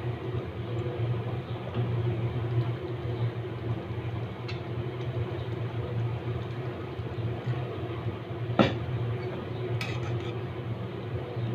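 Metal spatula stirring a simmering curry in an aluminium karahi, knocking sharply against the pan a few times, loudest about two-thirds of the way through, over a steady low rumble.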